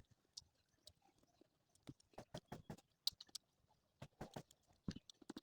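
Faint chewing of eggplant: soft mouth clicks in irregular runs, with short pauses between them.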